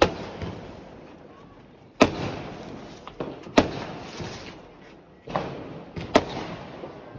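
Firecrackers going off: five sharp bangs, one every second or two, each followed by an echoing tail.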